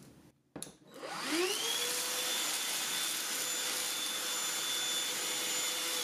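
Black+Decker BDH2000PL 20-volt cordless pivot hand vacuum switched on with a click about half a second in, its motor spinning up with a rising whine, then running steadily as it sucks up dried black beans.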